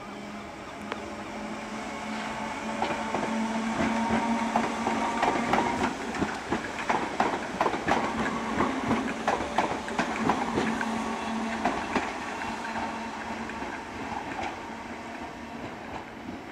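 Merseyrail third-rail electric multiple unit passing over pointwork, its wheels clattering over rail joints and crossings with a steady hum underneath. It grows louder, clatters most in the middle, and fades near the end.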